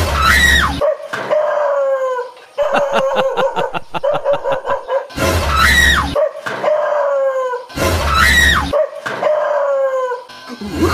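A dog yelping and howling in fright, with a low thump as a large plastic tub comes down over it; the same thump and cry come three times, with a fast string of short yelps between the first two.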